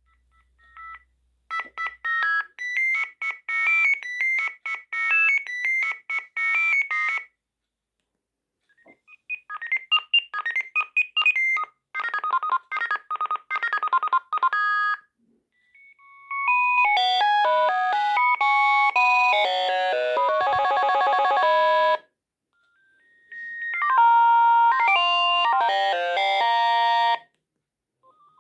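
Sagem MW 3020 mobile phone playing its ringtones through its small speaker: about four short electronic melodies of quick beeping notes, one after another, with brief silences between them.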